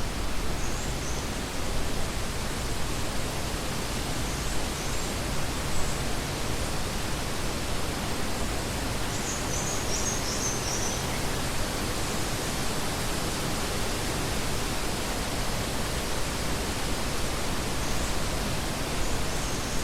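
Steady, even rushing noise spread across low to high pitches, with a few faint short high chirps here and there.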